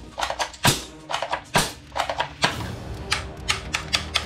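Plastic toy guns clattering and knocking against one another as they are rummaged through in a cardboard box: a string of sharp, irregular knocks.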